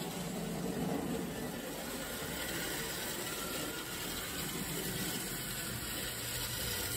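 O gauge toy train pulling a string of tank cars on three-rail tinplate track, running with a steady rumble of wheels on the rails and the locomotive's motor.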